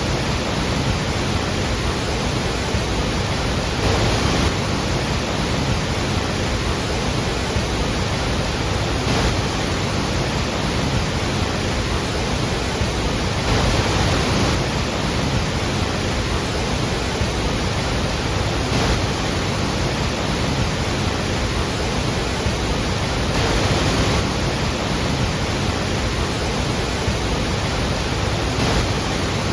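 Iguazu Falls' water falling, a steady dense rush that swells slightly a few times.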